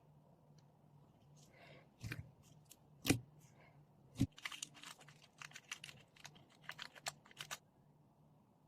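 Foam slime being pressed and stretched. It gives a few sharp pops, then a quick run of crackling snaps for about three seconds.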